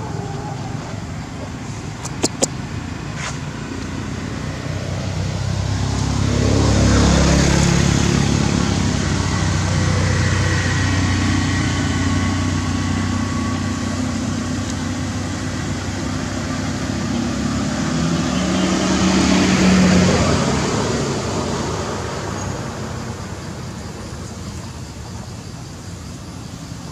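Motor vehicles running close by, their engine hum swelling loudest as a vehicle passes about seven seconds in and again near twenty seconds. There are a few sharp clicks around two seconds in.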